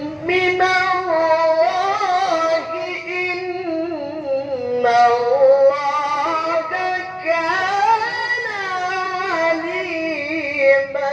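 A man reciting the Qur'an in the melodic tilawah style, in a very high voice: long held, ornamented phrases with wavering, sliding pitch and hardly a pause for breath.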